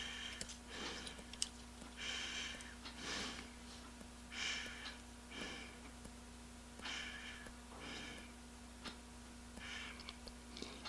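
A man breathing close to the microphone, soft regular breaths about once a second. A faint steady hum runs underneath, and there is one small click about a second and a half in.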